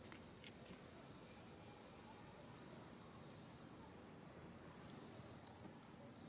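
Faint, quick high-pitched chirps, two or three a second, like small birds calling, over a steady low background hiss.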